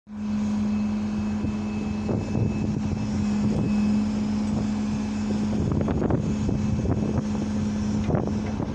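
An engine running steadily at one constant pitch, with a few short knocks about six and eight seconds in.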